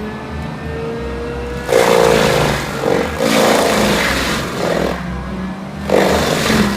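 Diesel engine of a CAT 289D compact track loader running hard, driving a DAF-180D forestry mulcher's horizontal-shaft rotor. The engine note rises over the first couple of seconds, then loud surges of shredding noise come about two seconds in, again around three and a half seconds, and near the end as the rotor's fixed knives chew into palm trunks and fronds.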